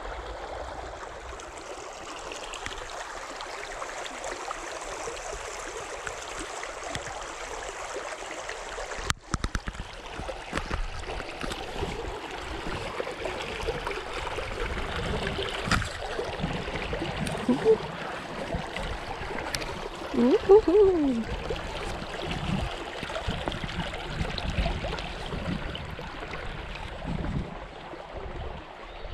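Creek water flowing and trickling over rocks, a steady rush. After a break about nine seconds in the water is closer, with footsteps on stepping stones and a brief falling tone a little after twenty seconds.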